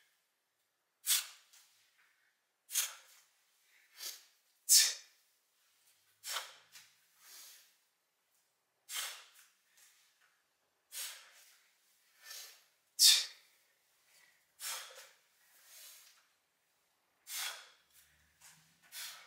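A man's sharp, forceful exhalations, one every second or two, as he breathes hard under the strain of kettlebell reps: the puffing of lunges and overhead presses.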